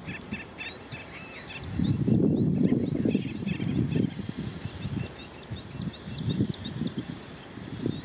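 A bird repeating high, thin calls, each a short rising-and-falling note, about two a second, with a few lower, shorter notes in the first second or so. Underneath runs a low rumbling noise, loudest about two seconds in.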